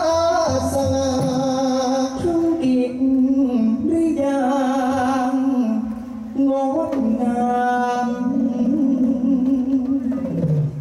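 Likay singing: a solo voice sung into a microphone, holding long notes with wide vibrato in drawn-out phrases. About six seconds in, the part passes from one singer to the other.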